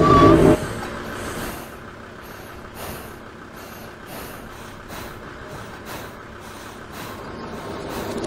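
Heavy site machinery running: a loud engine drone that drops sharply about half a second in to a fainter, steady mechanical running sound with faint regular ticks about once a second.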